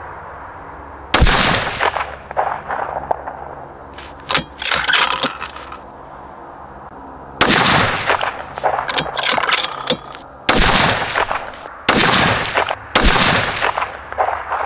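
Five shots from a custom 6.5 Creedmoor bolt-action precision rifle. Each is a sharp crack with a ringing tail: one about a second in, then a run of four closer together in the second half. Smaller clicks are heard between the shots.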